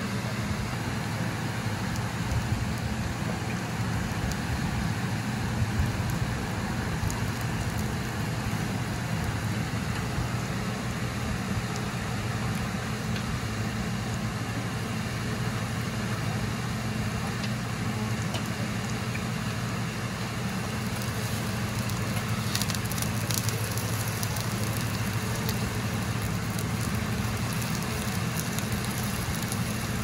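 Seafood green onion pancake frying in oil on a griddle: a steady sizzle over a constant low hum, with sharper crackles in the second half.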